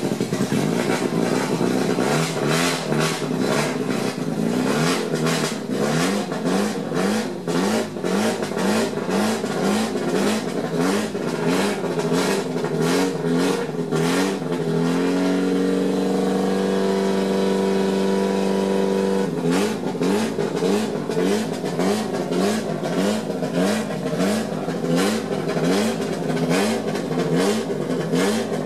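The four-cylinder twin-cam 'Testastretta' engine of an Alfa Romeo GTA 1300 Junior, revved by hand at the throttle linkage in quick repeated blips, about one or two a second. About halfway through it is held at steady higher revs for some four seconds, then the blipping resumes.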